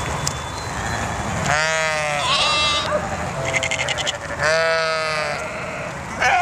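Sheep in a large flock bleating. Two loud, wavering bleats come close by, about a second and a half in and again about four and a half seconds in, with fainter bleats from the flock between them.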